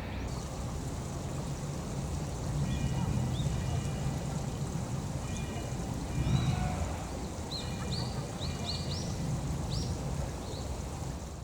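Short high bird calls over a steady low rumble: a few clusters of rapid repeated notes, then several quick rising chirps in a row past the middle.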